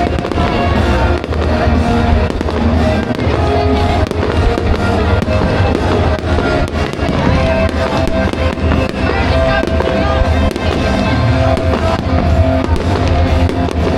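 Fireworks going off in a rapid series of bangs and crackles over loud music.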